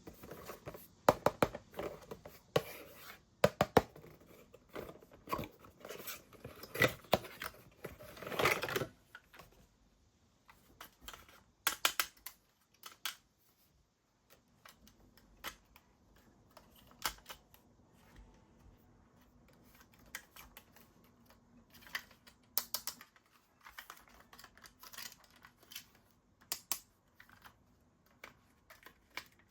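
Hands handling the mini fan and its packaging: a dense run of clicks, crinkles and rustling for the first several seconds, then scattered separate clicks and taps with short quiet gaps.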